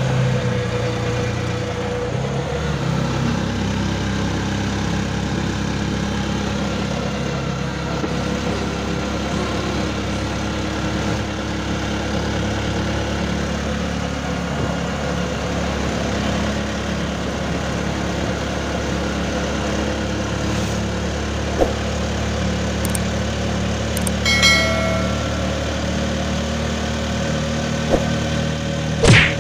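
The engine of a small road vehicle runs steadily under way, heard from the passenger seat along with road noise. There is a short, high beep about 24 seconds in and a sharp knock right at the end.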